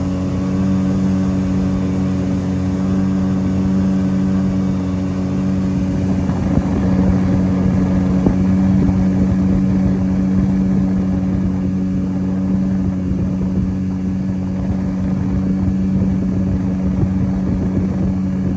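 Boat outboard motor running at a steady pitch, with a rush of wind and water over it.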